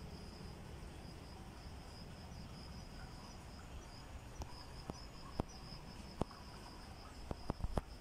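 Insects chirping in a steady, pulsing high trill of the cricket kind. From about halfway through, a few sharp crackles of footsteps on dry leaf litter and twigs come in, growing more frequent near the end.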